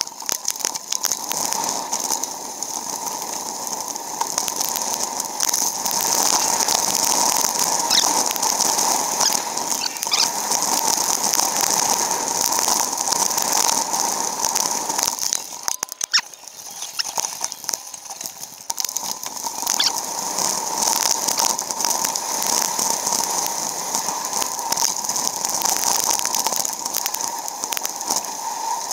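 Wind and road noise from a bicycle ride, played back fast along with the fast-motion footage: a steady rushing hiss full of small clicks and chatter, dipping briefly about halfway through.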